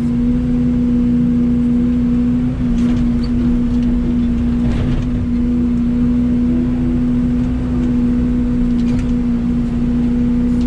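Mini excavator's diesel engine running at a steady throttle with a constant hum. A couple of faint knocks come about three and five seconds in.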